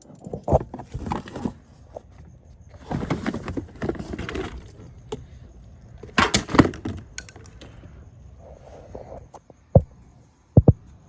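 Metal tools and loose car body parts clattering and rattling in short spells during hands-on work on a car's front end, with two sharp knocks near the end.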